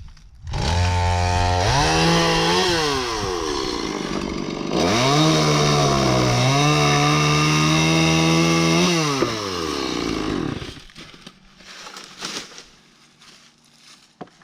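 Chainsaw started and revved up, easing off briefly and then running at high speed again, its pitch wavering as it cuts wood. It then winds down and stops about three-quarters of the way through.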